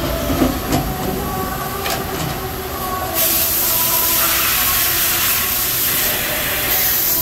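Fanuc RoboDrill Alpha T10-C pallet changer swinging and indexing a pallet: mechanical running with a few clunks in the first two seconds, then a loud, steady hiss of air about three seconds in.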